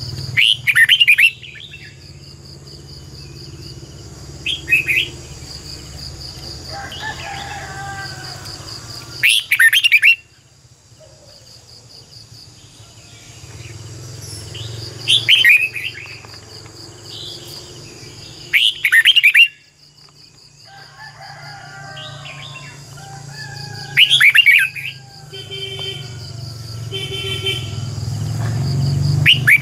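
Red-whiskered bulbul singing short, loud whistled phrases of quick gliding notes, about seven in all, each under a second and a few seconds apart. A steady high insect drone runs underneath.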